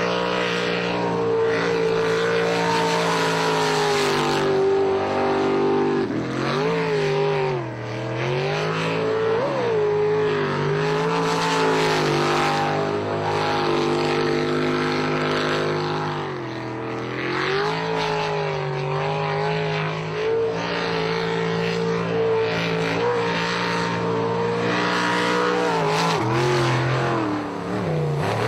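Jet boat engine running hard at high revs, its pitch dropping and climbing back up several times.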